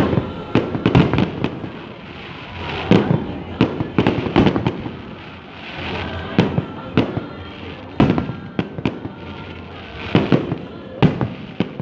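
Aerial fireworks shells bursting in a series of sharp bangs, some in quick clusters, each followed by a short echoing tail.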